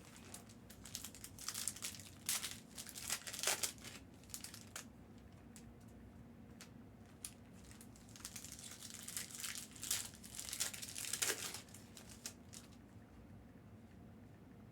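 Plastic trading-card packaging crinkling as it is handled, in two spells of crackly rustling.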